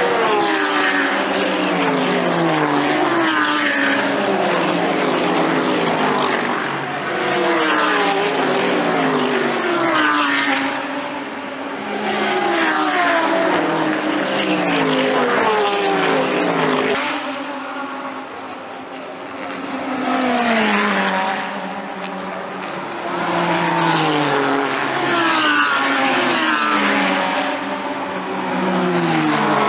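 GT3 race cars passing one after another at speed, several engines heard at once, each engine note falling in pitch as the car goes by. The sound dips briefly in short gaps between groups of cars.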